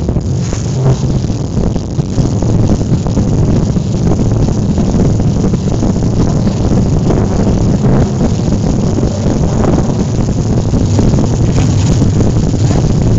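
Loud, bass-heavy dance music played through a DJ's PA sound system, muddy and overloaded as picked up by the recording microphone on the dance floor.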